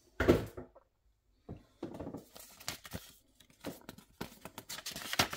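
Paper rustling and crinkling as a folded instruction manual is picked up and handled, in irregular bursts.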